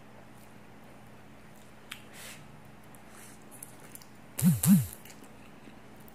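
Noodles slurped up off chopsticks: a soft slurp about two seconds in, then two loud slurps in quick succession about four and a half seconds in.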